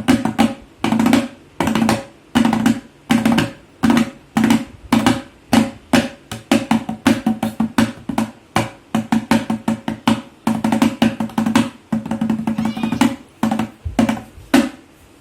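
Tabla played solo: quick runs of sharp strokes, each ringing with a pitched tone, in flurries and single hits, with a deeper bass stroke near the end before the playing stops.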